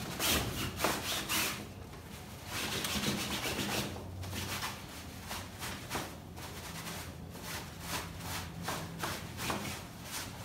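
Cloth scrubbing the padded fabric seat of a baby swing bassinet in quick back-and-forth rubbing strokes. The strokes are heavier through the first few seconds, then come faster and lighter.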